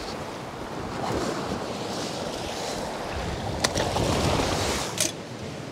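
Sea waves breaking and washing against a rocky shore ledge, with wind buffeting the microphone; the wash swells twice. Two light clicks near the end.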